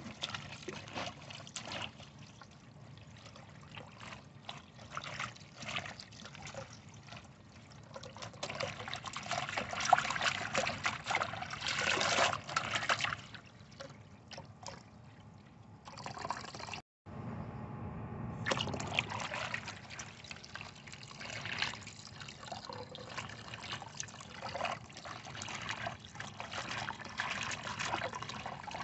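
Tap water running into a stainless-steel basin and splashing as hands swish and squeeze wet cloth, rinsing out freshly dyed fabric. The splashing is loudest about ten to thirteen seconds in and cuts out briefly a little past halfway.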